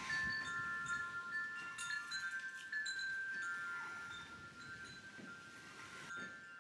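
Metal wind chimes ringing in the wind, several tones overlapping and sustaining, with a low rumble of wind on the microphone in the first second.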